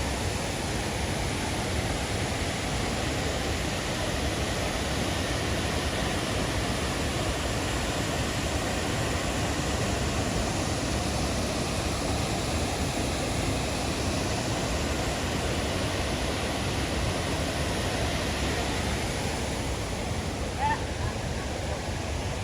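Waterfall rushing steadily, a constant even wash of falling water.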